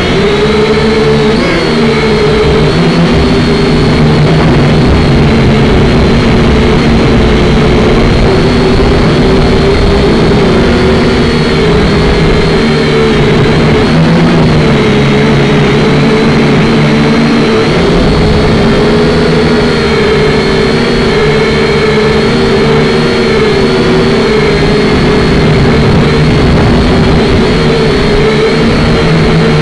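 Syma X5C quadcopter's four small brushed motors and propellers whining loudly and continuously, heard up close through the drone's own onboard camera; the pitch wavers slightly as the throttle shifts.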